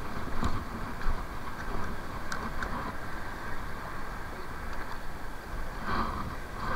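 Steady low rumble of wind and surf at the rocky seashore, with a few faint clicks.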